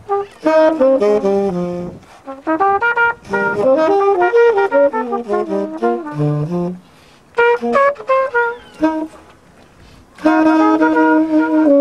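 Trumpet and tenor saxophone improvising a jazz duet, their melodic lines sometimes overlapping, in phrases broken by short pauses; a long held note near the end drops into a run of falling notes.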